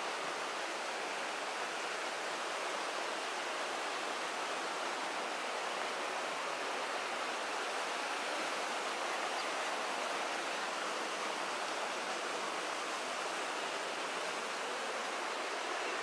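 Steady rush of a rocky mountain stream: water tumbling over stones.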